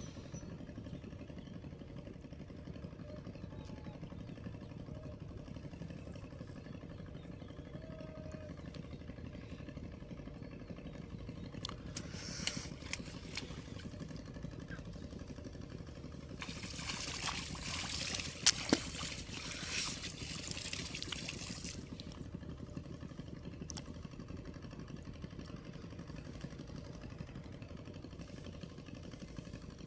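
Water splashing and trickling for several seconds near the middle, with a few sharp clicks, over a steady low rumble.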